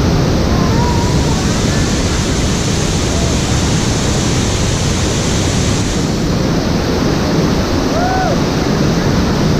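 Waterfall rushing: a loud, steady roar of falling water. A few faint, brief calls sound over it, about a second in and again near the end.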